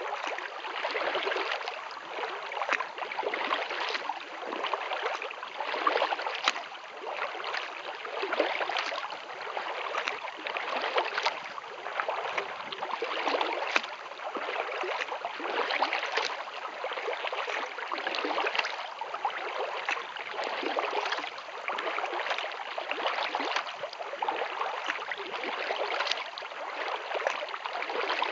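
Water splashing and trickling around a kayak's paddle and hull as it is paddled steadily. The splashing swells and eases in a regular stroke rhythm.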